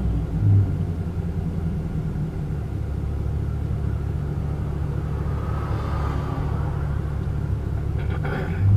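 Dodge Scat Pack's 6.4-litre HEMI V8 with a catless exhaust, rumbling steadily at low revs. A short run of crackles comes near the end.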